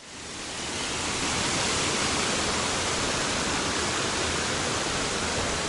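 Shallow mountain stream rushing over stones: a steady hiss of running water that fades in from silence at the start.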